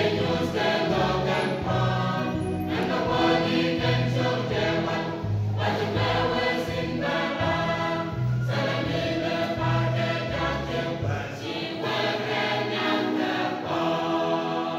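Mixed church choir of men and women singing in parts. The lowest part drops out about eleven seconds in, while the upper voices carry on.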